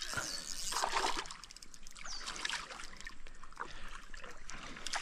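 Water splashing and trickling unevenly, with many small splashes and spatters.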